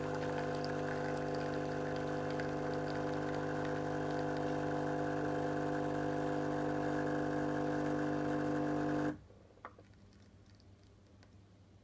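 Gaggia Brera espresso machine's vibratory pump humming steadily while it pushes water through the coffee puck to extract a single shot. The pump cuts off suddenly about nine seconds in as the shot ends, followed by a faint click.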